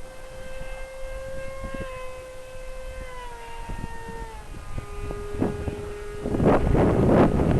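Electric ducted fan of an R/C JAS 39 Gripen model jet whining at a steady pitch that steps down slightly a few times, as with easing throttle. About six seconds in, loud wind buffeting the microphone drowns it out.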